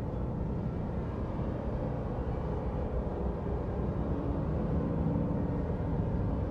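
A steady low rumbling drone with no distinct events.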